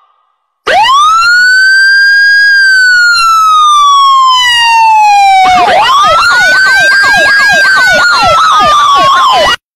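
Siren wailing: one long tone that rises, holds, then slowly falls, followed by a second rising wail with fast yelping sweeps laid over it. It cuts off suddenly near the end.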